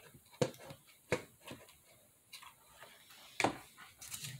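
Scattered light clicks and taps from a hot glue gun and a cardboard tissue box being handled, about half a dozen in all, with a sharper knock about three and a half seconds in.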